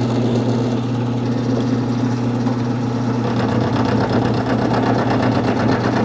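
Craftex CX-series milling machine running steadily as a 3/4 inch end mill face-mills a cast clutch arm, throwing chips. Under the motor's hum, a fast, even rattle of the cutting teeth grows from about three seconds in.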